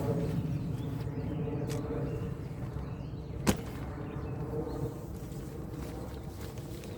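Steady low rumble with a single sharp click about three and a half seconds in.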